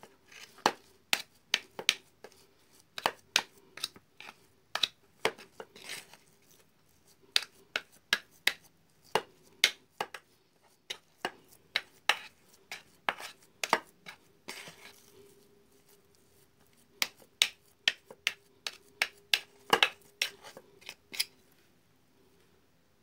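A metal utensil clinking and scraping against an enamel bowl in a quick, irregular run of sharp knocks while thick fish-bait dough is worked and scooped out. A brief softer rustle comes a little past halfway, and a faint steady hum runs underneath.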